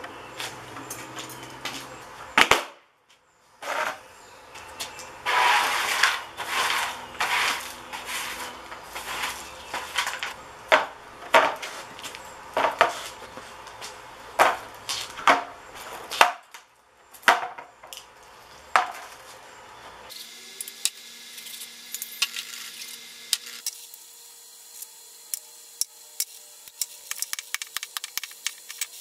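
Metal parts knocking and clanking as ballast coils and steel scrap are handled and set down on a sheet-metal tray, in irregular bursts that cut off abruptly a few times. The last several seconds hold quieter, rapid light ticking.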